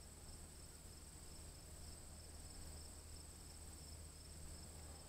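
Faint, steady high-pitched trilling of crickets, over a low hum.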